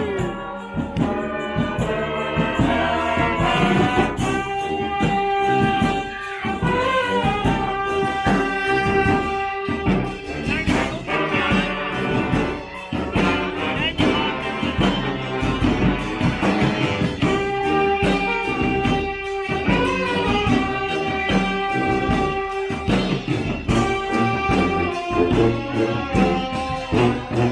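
Street brass band playing, horns holding long notes over a steady drum beat.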